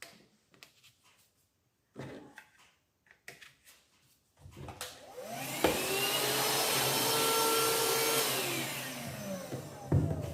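STIHL SEA 20 cordless handheld vacuum cleaner switched on about halfway through: the motor spins up with a rising whine, runs for a few seconds, then winds down with a falling whine after it is switched off. Before it starts there are a few light clicks and knocks.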